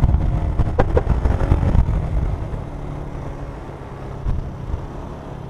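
Vehicle engine and road noise picked up by an action camera's fur-covered external mic, with heavy low buffeting rumble for about the first two seconds that then settles into a quieter, steady engine hum.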